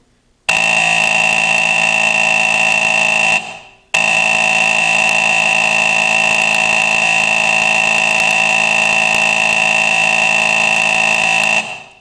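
Faraday fire alarm horn sounding a loud, steady buzzing blast. It cuts out for about half a second after three seconds, then sounds again until just before the end.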